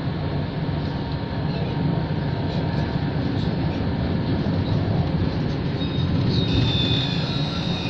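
Tram running on its rails, heard from inside the car: a steady rumble of wheels and motors that slowly grows louder, with a thin high squeal of the wheels joining about six and a half seconds in.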